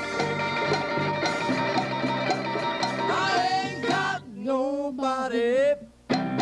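Live band music: the full band holds a chord for a few seconds. Then a woman's voice sings over lighter accompaniment.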